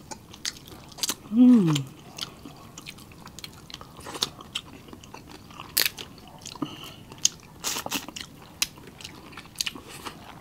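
Close-miked eating: wet chewing and lip-smacking with many sharp clicks and crackles as crab meat is picked from the shell and a shrimp is peeled. About a second and a half in, a short hum of the voice falls in pitch, the loudest sound here.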